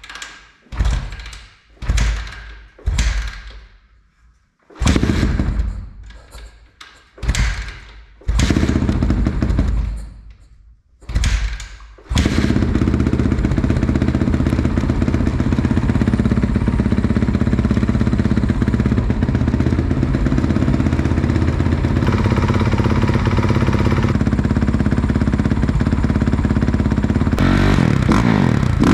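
Honda dirt bike engine being started: a string of short tries, each spinning the engine briefly and dying away. It catches about twelve seconds in and settles into a steady idle to warm up after an oil change. Near the end the revs rise and fall.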